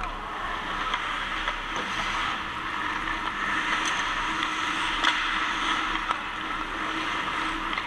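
Ice hockey play: skate blades scraping and carving on the ice, with several sharp clacks of sticks and puck, the loudest about five seconds in, over a steady low hum of the rink.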